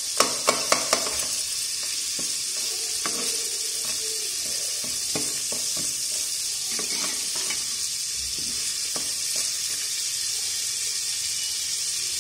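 Butter sizzling in a pressure cooker with popcorn kernels, a steady hiss, while a slotted metal spatula stirs and scrapes through the kernels. The spatula knocks the pot four times in quick succession in the first second, then clinks now and then.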